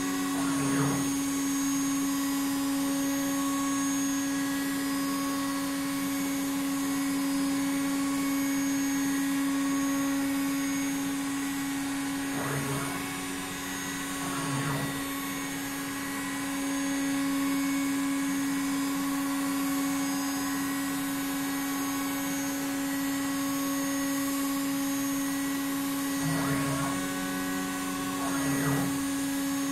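CNC router running with nothing being cut. The spindle motor hums at one steady pitch, and the gantry's motors whine up and down in pitch in pairs about two seconds apart as the carriage makes its moves, roughly every fourteen seconds.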